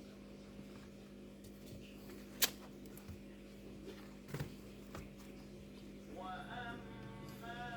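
A few sharp clicks and taps from handling the laptop over a steady low hum. Faint music begins about six seconds in.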